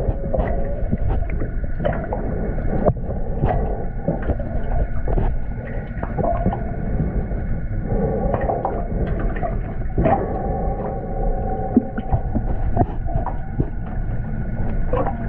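Underwater sound picked up through a GoPro's waterproof housing: a steady muffled rumble with scattered clicks and knocks. Faint wavering whines come and go, clearest from about eight to eleven seconds in.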